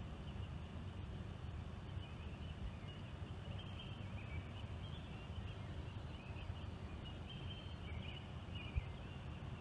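Faint outdoor background noise: a steady low rumble with intermittent high, wavering chirps that come and go.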